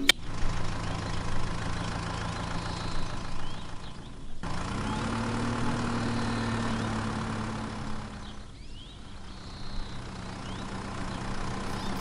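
Small electric motors of homemade toy tractors running with a steady hum. The sound cuts off about four seconds in and comes back at a slightly higher pitch, then shifts again later on.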